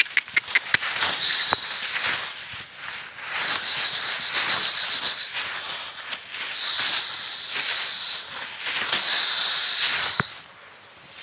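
A quick run of sharp claps in the first second, like pigeons' wings clapping as they are flushed into the air, then a loud high hissing buzz in four bursts of one to two seconds each.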